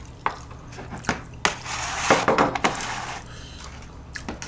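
Dishes and a plastic lunchbox tray being moved about on a wooden table: a few sharp knocks and clicks, then a longer scraping clatter about two seconds in.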